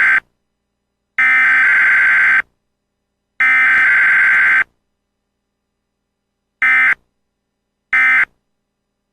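Emergency Alert System SAME digital data tones, a harsh warbling two-tone screech: one header burst ends just as the sound begins and two more follow, each about a second and a quarter long and a second apart, then two short end-of-message bursts about a second apart near the end.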